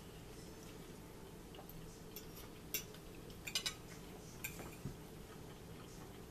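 Light clicks and clinks of cutlery against plates during a meal: a handful of sharp ticks spread through the middle, with a quick cluster of the loudest ones, over a low steady room hum.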